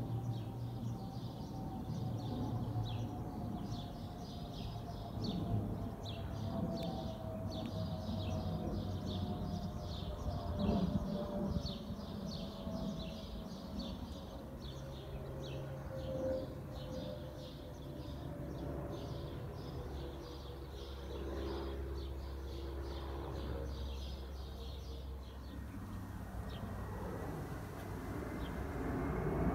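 An Airbus A320 airliner passing high overhead: a jet engine whine that falls slowly in pitch over a low rumble, while small birds chirp rapidly. Near the end a second airliner, an Airbus A319, approaches with a rising whine that grows louder.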